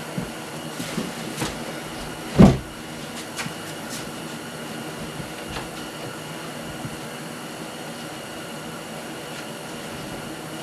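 Wooden tool chest carcass being handled: a few light knocks, then one heavy thump about two and a half seconds in, over a steady room hum.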